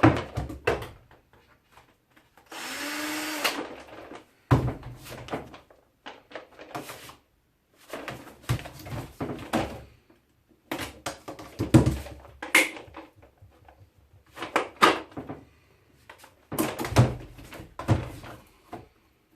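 An electric drill-driver spins up in one short run of about a second, about two and a half seconds in, undoing screws in a plastic strimmer housing. After it come irregular knocks, clatters and rattles as the plastic casing and parts are handled and pulled apart.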